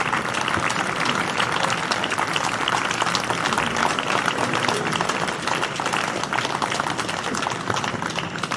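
Crowd applauding, a steady dense patter of many hands clapping that eases slightly near the end.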